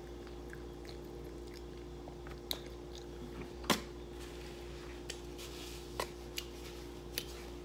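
Close-up chewing and mouth sounds of a person eating, with a handful of short sharp clicks, the loudest about three and a half seconds in, over a faint steady hum.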